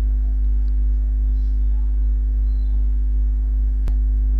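Steady electrical mains hum with a fainter steady tone above it, and a single sharp click just before the end.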